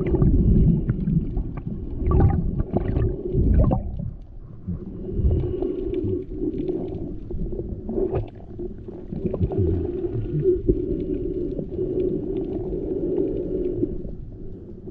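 Muffled underwater sound through a GoPro's waterproof housing while snorkeling: low sloshing and bubbling with irregular knocks for the first few seconds, then a steadier low drone with scattered clicks.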